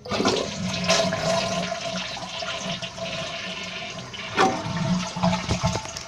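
2007 Kohler Wellworth toilet flushing, heard from inside the open tank: water starts rushing out all at once and keeps going, gradually easing off, with one brief louder burst about four and a half seconds in.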